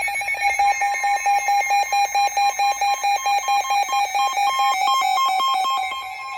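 Weather radio emergency alert: a loud, rapidly pulsing electronic alarm tone. A second, higher tone joins about a second in. It signals that a new warning broadcast is about to begin.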